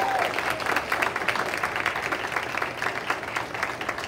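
Audience applauding: many people clapping together, a dense, steady patter of hand claps.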